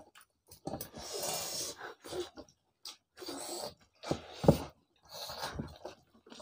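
Eating sounds: people chewing mouthfuls of rice and noodles and breathing while they eat, with hands scooping rice from a steel plate. These come in short separate bursts, with one sharper smack a little past halfway.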